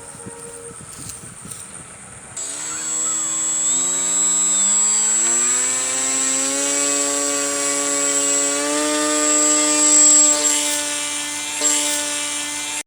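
Brushless electric motor with propeller spinning up: after a couple of seconds of light clicking, a whine starts and rises in pitch in several steps as the throttle is raised, then holds steady and high.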